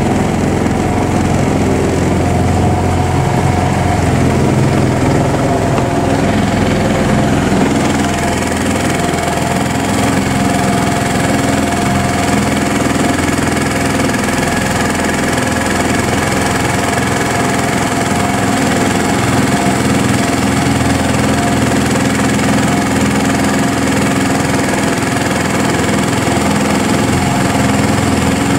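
Seven-horsepower air-cooled engine of a Mud Skipper surface-drive mud motor, running steadily while it pushes a jon boat along under way.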